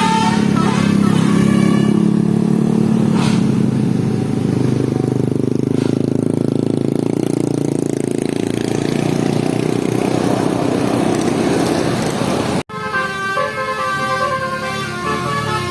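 A bus telolet horn, a set of electric air horns, plays a stepped multi-note melody that ends just after the start. A low steady drone and rush of a large road vehicle follow, the rush swelling about eight to ten seconds in. After an abrupt cut, another telolet horn melody starts near the end.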